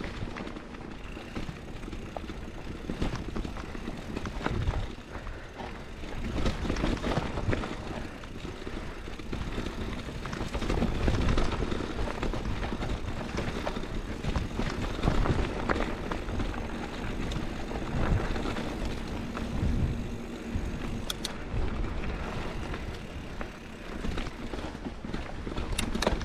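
Scott Spark 950 mountain bike on Maxxis Dissector tyres rolling down a rocky dirt trail, heard from a GoPro on the rider: steady tyre noise on dirt and loose rock, with irregular knocks and rattles as the bike goes over bumps. Wind rumbles on the camera microphone underneath.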